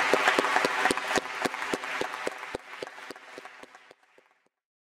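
Audience applauding, the clapping thinning out and fading away about four seconds in.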